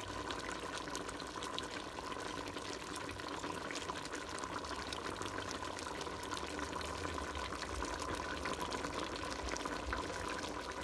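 Pot of brown stew oxtail with broad beans simmering, a steady bubbling dotted with small pops, over a faint steady hum.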